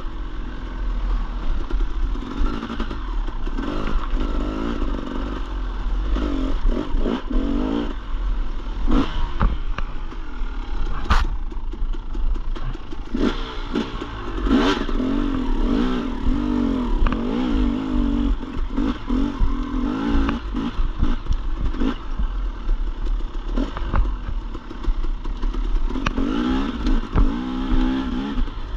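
Dirt bike engine riding a trail, its pitch rising and falling over and over as the throttle is worked. Scattered sharp clattering knocks from the bike over rough ground cut through it, over a steady low rumble.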